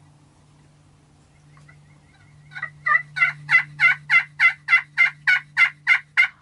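A turkey yelping: a run of about a dozen evenly spaced yelps, about three a second, that start faint and are soon loud and steady.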